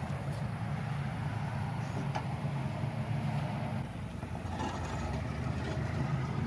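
Forklift engine running steadily at low revs while it handles a load, with a few faint metallic clicks.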